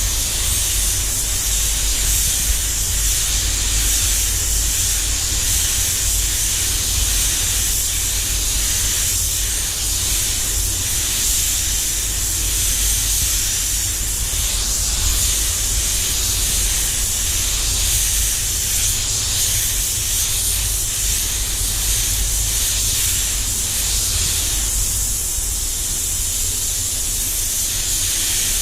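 Devilbiss DV1 air spray gun hissing steadily as it sprays metallic base coat, over a low rumble.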